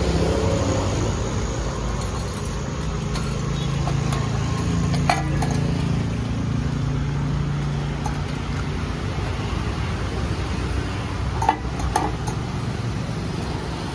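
Steady street traffic noise with a low engine hum, and a few sharp metal clinks of cooking utensils at a street food stall: one about five seconds in and two close together near the end.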